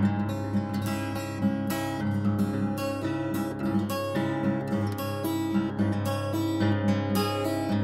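Background music: a strummed acoustic guitar piece with a steady rhythm.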